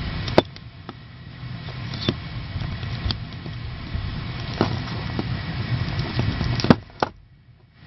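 Bicycle chain and chain tool being handled and flexed while working a part-pushed pin loose to separate the link: scattered sharp metal clicks over a low rumble, the loudest click near the end.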